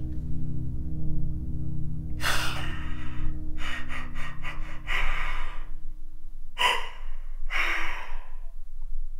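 A man's heavy, gasping breaths into his hands, about five of them starting some two seconds in, over a low droning music score that drops away about two-thirds through.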